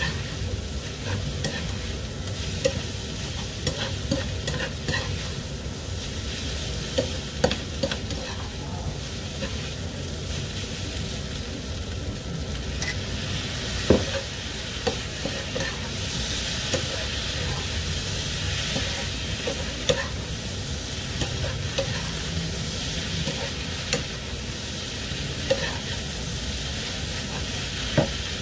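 Rice noodles and vegetables sizzling as they are stir-fried in a skillet, with tongs clicking and scraping against the pan every few seconds; the loudest clack comes about halfway through.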